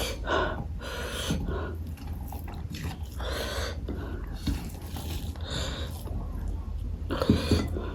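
Close-miked eating sounds: wet chewing and lip smacking in irregular short bursts as a mouthful of food is chewed.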